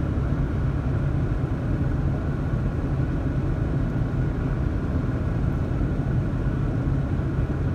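Car driving slowly along a snow-covered road, heard from inside the cabin: a steady low rumble of engine and tyres with a constant hum.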